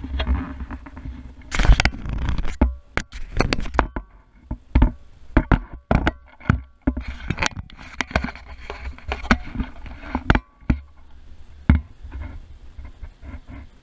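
Irregular clicks, knocks and rustling from handling objects around a kitchen stove, over a low rumble of handling noise on the microphone.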